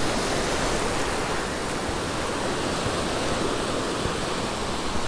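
Surf breaking and washing through the shallows, a steady rush of water.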